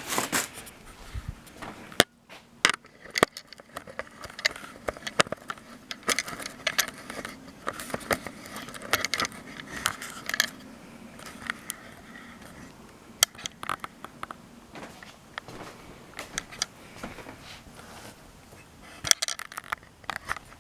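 Old metal hand tools clinking and scraping against one another as they are rummaged through and picked out of a box, with irregular sharp clinks throughout.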